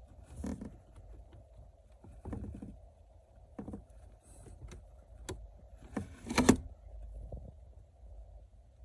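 Handling noise as multimeter test probes are moved and pressed onto blade fuses: scattered light taps and rustles, the loudest a short cluster about six seconds in, over a faint low hum.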